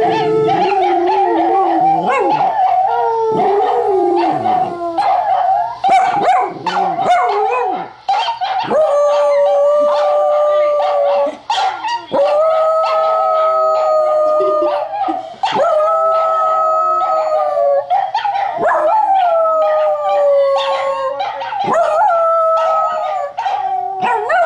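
A dachshund howling in a long series of drawn-out notes. It wavers at first, then holds each note for two or three seconds with a drop at the end, set off by the dog sounds of a puppy video it is watching.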